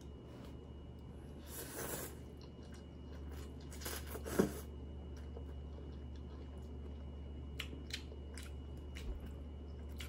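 Mouth sounds of eating hot instant ramen noodles: two short slurps, the louder about four seconds in, then a few soft lip-smacking clicks while chewing.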